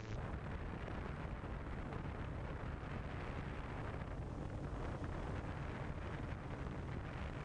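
Wind buffeting the microphone: a steady rumbling hiss that begins abruptly as the audio cuts in.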